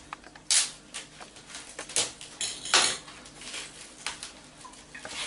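Short rustles and small knocks of a plastic-wrapped piece of ham being handled and unwrapped on a kitchen chopping board, with louder bursts about half a second, two seconds and three seconds in.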